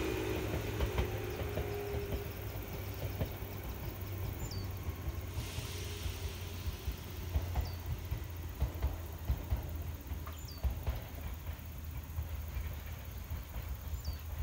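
Meitetsu 6000 series two-car electric train pulling away, its running noise fading over the first couple of seconds and leaving a low steady rumble. A bird gives a short, high, falling call four times, about every three seconds.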